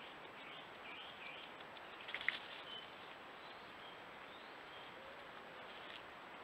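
Steady hiss of a trail camera's microphone, with faint high chirps and short whistled notes over it, and a brief burst of sharp clicks about two seconds in.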